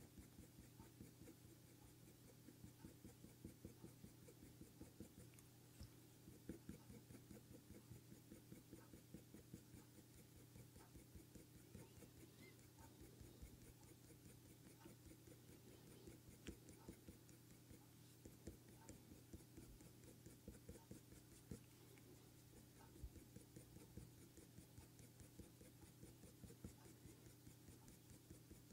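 Faint, quick scratching of a Faber-Castell Polychromos colour pencil on hot-press paper, laying short directional strokes in rapid runs with brief pauses between them. A low steady hum sits underneath.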